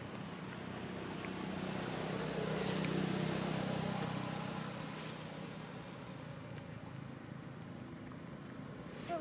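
A low engine hum, as of a passing motor vehicle, grows louder a couple of seconds in and then fades, over a steady thin high whine. A brief squeak comes near the end.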